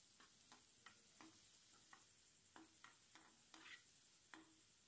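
Near silence with faint, irregular clicks, two or three a second: a ladle knocking against the pan while stirring chopped onions.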